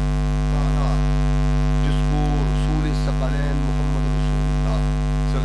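Loud, steady electrical mains hum: a buzz with many evenly spaced overtones running unchanged, with a voice faint beneath it.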